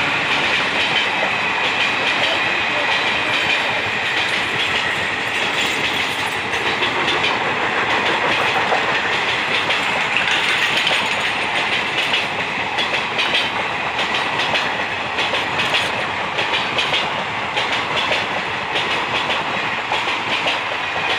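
Passenger coaches running past on the track, their wheels clattering steadily over the rail joints in a continuous rush of rail noise.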